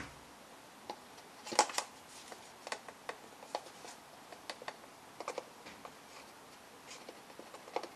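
Small clicks and scrapes of a plastic spice jar and a measuring spoon being handled while a teaspoon of ground cinnamon is scooped out. The sharpest click comes about a second and a half in.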